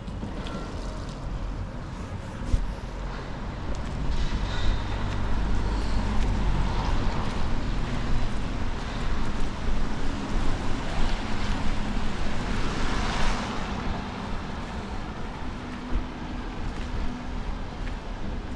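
Traffic on a wet city street: engines rumbling nearby, with a louder swish as a vehicle passes about thirteen seconds in.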